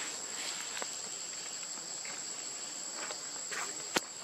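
Steady chorus of insects, a constant high-pitched drone, with a few faint clicks and one sharp click near the end.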